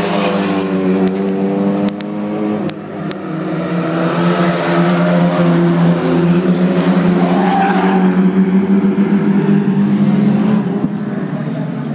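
Special Rods oval racing cars lapping close by at speed, several engines running hard together. The sound dips about two seconds in, builds again as the next bunch comes round, and falls away near the end.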